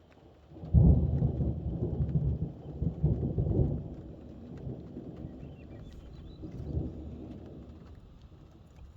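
Thunder: a sudden clap about a second in, then a heavy rumble for about three seconds, easing to a lower rumble that swells once more near the end and dies away. Rain patters lightly throughout.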